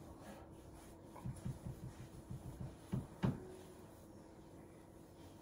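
Soft low taps, about five a second for a second and a half, then two sharper knocks a third of a second apart: handling noise.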